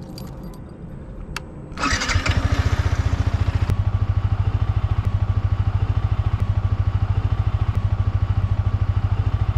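Yamaha R15 V4's 155 cc single-cylinder engine being started with the electric starter about two seconds in, after a faint high whine as the ignition is switched on, then settling into a steady, evenly pulsing idle.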